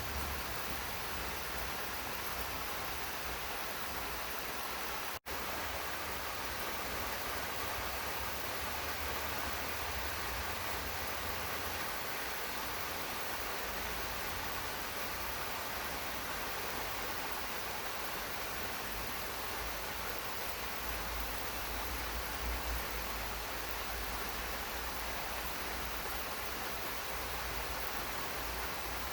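Steady rain falling in a garden, an even, continuous hiss with a low rumble beneath it. The sound drops out for a split second about five seconds in.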